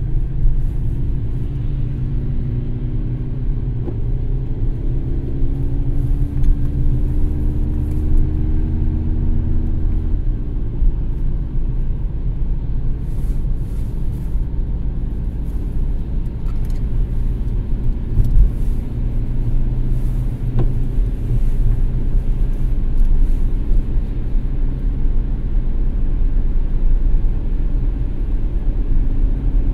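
A car driving along a road: a steady low rumble of road and engine noise. For the first ten seconds or so a faint hum rides on top and slowly slides in pitch, then fades.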